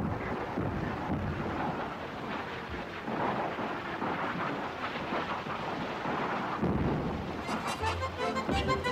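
A large building fire roaring, a steady noisy rumble with dense crackling. Accordion music comes in near the end.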